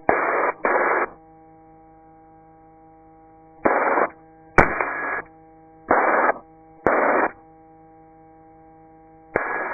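Short bursts of radio static, about seven of them, each roughly half a second long, switching on and off sharply over a steady electrical hum, as a radio or headset channel is keyed open without speech.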